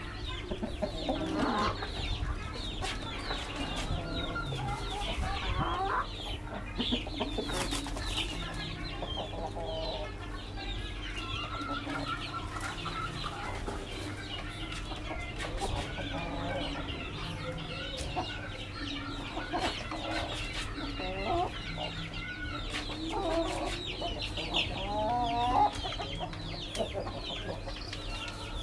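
Chickens clucking at intervals, over a steady run of many short high chirps.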